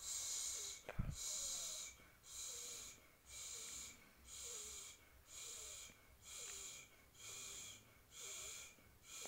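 A woman's repeated hissing "sss" sound, coming about once a second in a steady rhythm, made to coax a baby to pee; a brief knock about a second in.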